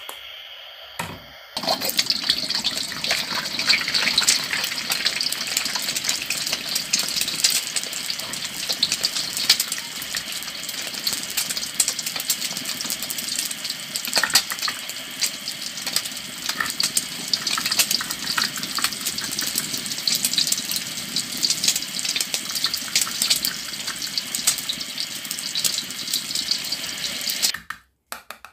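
Frying sizzle, a continuous crackling hiss like food in a hot pan, added as a sound effect to pretend cooking with toy food. It starts about two seconds in and cuts off suddenly just before the end.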